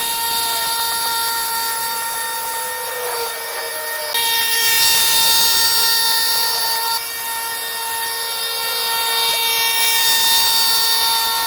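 A power tool's motor running steadily at a high, constant pitch, with a hiss joining about four seconds in.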